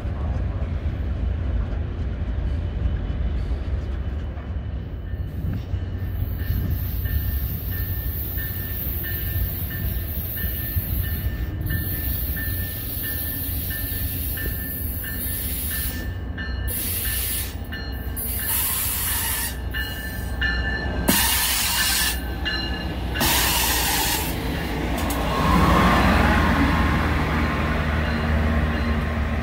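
Train rolling past with a steady low rumble, its steel wheels squealing against the rail in thin high tones; it gets louder in the second half.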